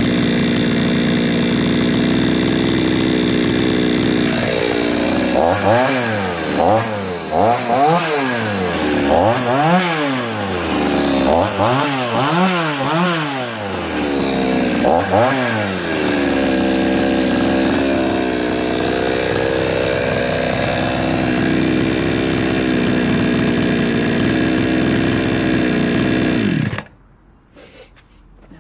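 Charles Jacobs 58cc two-stroke chainsaw, warm, running at a fast idle. From about five seconds in the throttle is blipped roughly seven times, each rev rising and falling. It then settles back to idle and cuts off suddenly near the end as the engine is stopped.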